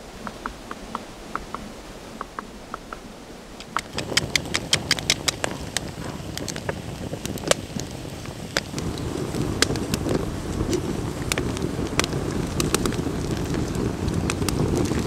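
Great spotted woodpecker tapping lightly on a dead spruce trunk, a couple of taps a second. About four seconds in it gives way to a wood campfire crackling and popping. About halfway through a low rushing sound grows under the crackle.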